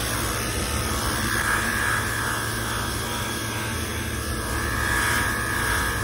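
Pressure washer running, its wand spraying water onto an air-conditioning unit's condenser coil to clean it: a steady drone and hiss with a faint high whine.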